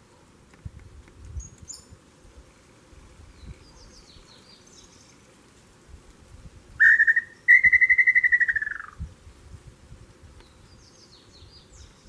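Tinamou (inhambu) calling: one strong note, then after a brief break a fast-pulsed trill that falls in pitch as it fades, together about a second and a half. Fainter, higher chirps of other birds come before and after it.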